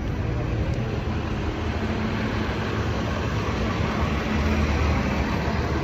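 Steady low rumble of city background noise, like distant traffic, with no clear single event.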